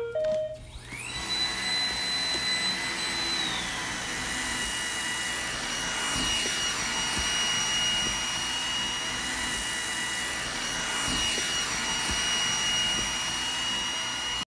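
Robot vacuum cleaner starting up: a couple of short beeps, then its motor whine rises over the first second and settles. The whine drops in pitch a few seconds in, then the machine runs steadily until the sound cuts off suddenly.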